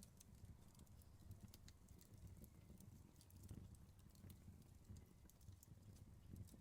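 Wood fire crackling faintly: irregular sharp pops and snaps over a low, steady rumble of the burning fire.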